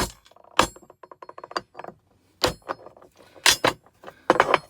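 Sharp metallic knocks and clinks from striking and handling a car compressor's metal parts while trying to free its pistons, about six strong strikes with small clicks between, some leaving a brief high ring.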